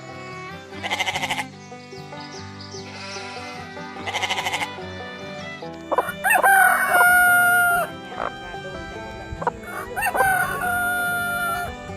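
A rooster crowing twice, each crow a long call that rises and then holds steady for about two seconds, the loudest sounds here. Earlier, two short wavering sheep bleats. Upbeat background music runs underneath.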